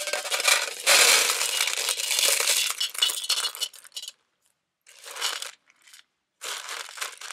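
Small pebbles poured from a cloth bag into a metal cooking-pot lid: a dense clatter of stones on metal for about four seconds, then a few short bursts of sound as the stones are settled by hand and the bag handled.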